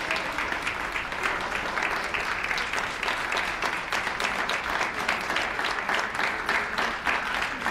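Audience applauding steadily, many hands clapping at once with no break.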